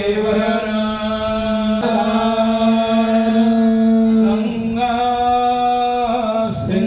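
Sanskrit mantra chanting by a Hindu priest: one voice holding long, steady notes in about three drawn-out phrases.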